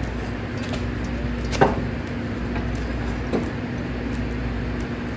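Two sharp metal clinks over a steady low hum: a loud one about a second and a half in and a fainter one a couple of seconds later, as the front hitch parts of a riding mower's deck are handled.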